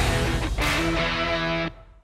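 Rock backing music led by electric guitar, cutting off abruptly near the end.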